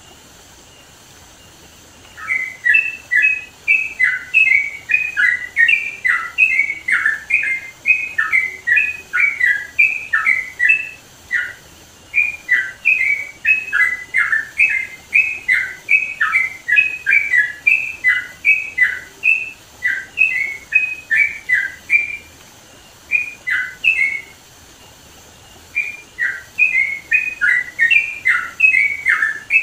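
Sooty-headed bulbul (trucukan) singing loudly in rapid runs of short notes that slide up and down, broken by a few brief pauses, over a faint steady hiss. The song starts about two seconds in.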